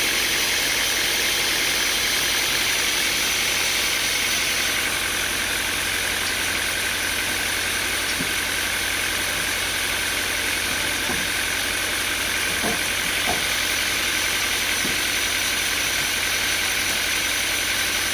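Sawmill machinery running steadily: an engine or motor with a high whine that shifts lower about five seconds in, and a few faint knocks near the middle.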